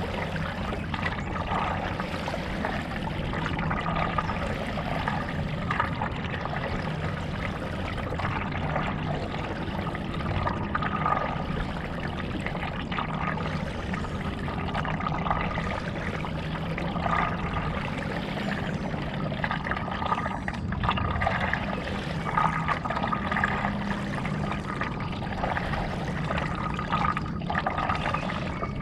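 Stand-up paddle strokes in lake water: the blade dipping and pulling with a splash and trickle about every two seconds, in a steady rhythm.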